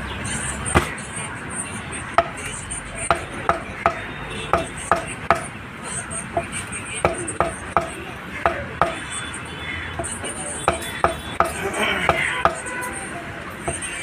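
Meat cleaver chopping pork into chunks on a round wooden chopping block: a long run of sharp knocks, mostly in quick groups of two to four with short pauses between.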